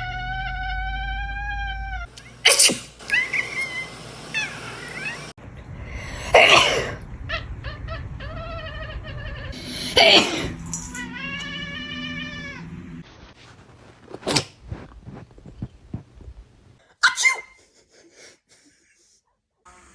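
A person sneezes about five times, and a cat answers with two long, drawn-out meows: one right after a sneeze at the start, and another about ten seconds in. The sneezes grow fainter toward the end.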